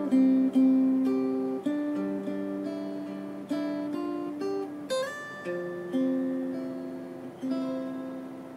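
Solo fingerstyle acoustic guitar with a capo, picking a melody over bass notes. The last chord comes about three-quarters of the way through and is left to ring out and fade, closing the piece.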